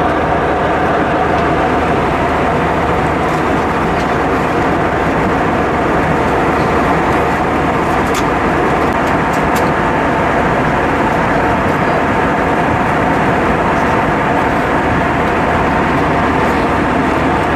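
Steady cabin noise of an Airbus A320-232 in flight: an even rush of air and engine drone with a steady hum, unchanging throughout.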